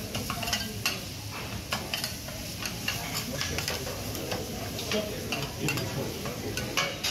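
Seafood and rice sizzling on a hot flat-top steel griddle, with metal spatulas repeatedly scraping and clacking against the plate.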